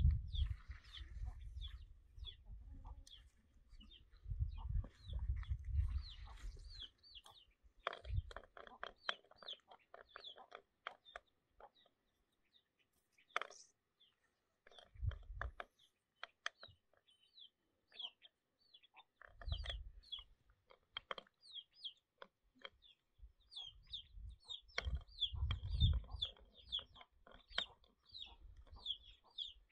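Chickens peeping and clucking in a rapid run of short high chirps, two or three a second, busiest in the second half. Low rumbles of wind on the microphone come and go.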